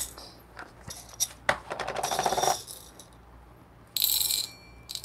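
Whole coffee beans rattling as they are poured out, then dropped into a stainless steel dosing cup on a scale, pinging and ringing against the metal about four seconds in.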